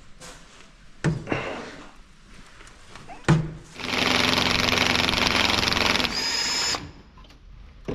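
A handheld power tool working on a rusted body bolt, run for about three seconds and changing to a higher whine briefly before it stops. Two metallic knocks come before it.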